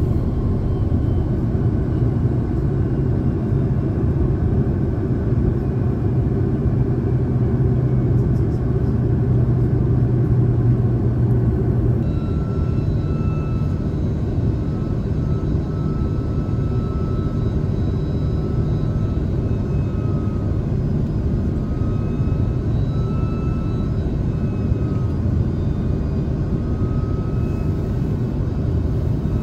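Airliner cabin noise in flight: a steady low rumble of the engines and airflow. About twelve seconds in, the sound changes abruptly, and a faint high tone then wavers in and out over the rumble.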